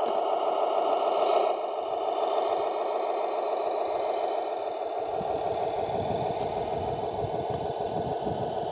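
Radio-controlled model construction vehicle running: a steady motor-and-gearbox whine, a little quieter after about a second and a half. About five seconds in, a rough low clattering rumble joins it.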